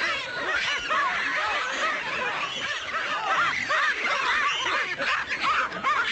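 A large flock of birds calling all at once, a dense chatter of many short overlapping chirps.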